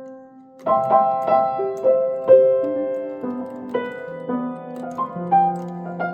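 1894 Kranich & Bach 7-foot Empire grand piano being played: a held chord fades, then under a second in a new chord is struck and a string of notes and chords follows. A low bass note sustains under them from about four seconds in.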